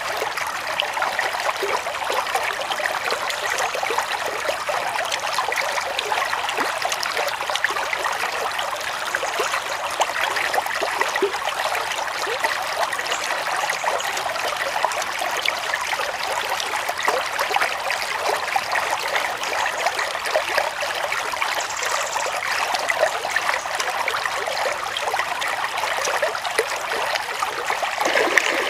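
Shallow stream flowing and trickling over rocks, a steady rushing sound.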